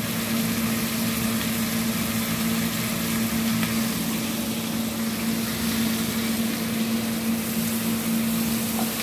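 Mackerel tuna pieces in chili balado sauce sizzling in a pan on a gas stove as the sauce's liquid cooks down, under a steady low hum. A spatula stirs the pan near the end.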